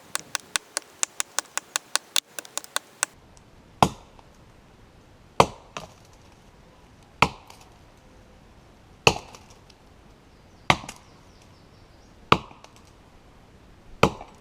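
Axe swung one-handed, chopping into a tree trunk. For the first three seconds the sped-up chops come quickly, about five a second; then the background goes quieter and single sharp chops land about every second and a half to two seconds, a few followed by a faint second knock.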